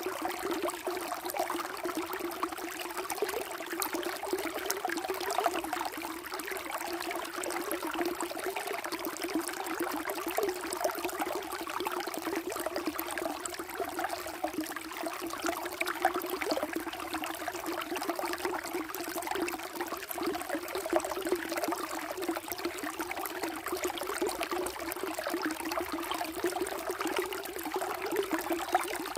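Water flowing and trickling steadily, a continuous babbling wash with no pauses.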